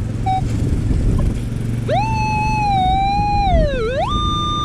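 Minelab Equinox metal detector giving target tones over a buried coin: two short beeps, then about two seconds in a long tone that rises, wavers, swoops down and jumps to a steady higher pitch, as the coil is worked over the target. A steady low rumble of wind and surf runs underneath.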